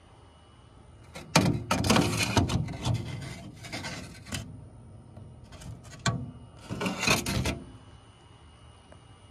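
Two spells of rubbing and scraping from parts and tools being handled during an oil burner nozzle and filter service, one starting about a second in and a shorter one about six seconds in.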